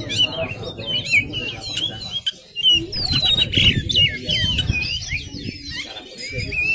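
Oriental magpie-robin (kacer) singing in a fast, unbroken run of varied whistles and chirps, the notes sliding up and down in pitch.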